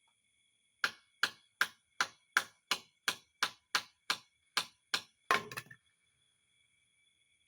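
A run of about a dozen sharp, evenly spaced knocks, roughly three a second, ending in a longer, louder clatter. A faint steady high electrical whine runs underneath.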